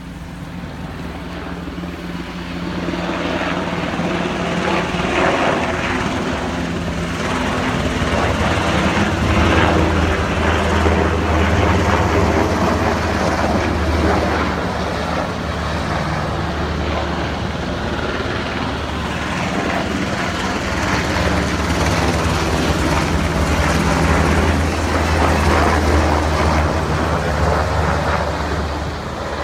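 Helicopter running close by: a loud, steady drone of rotor and engine that builds over the first few seconds and holds.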